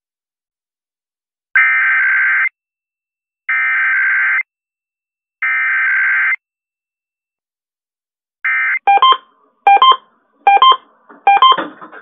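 Emergency Alert System test received over FM radio: three one-second bursts of the buzzing SAME header data tones, about two seconds apart. From about 8.5 s these give way to rapid short pulses of a two-tone beep, the EAS attention signal.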